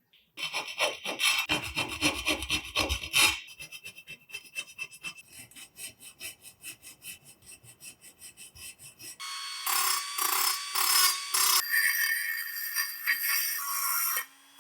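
Rhythmic back-and-forth strokes of hand filing or sanding. They are loud and coarse for about three seconds, then lighter at about four strokes a second. About nine seconds in they give way to a steadier sound with a held tone and pulsing.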